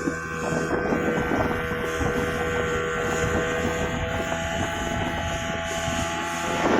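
Speedboat engine running steadily, a constant droning tone over a continuous rushing noise.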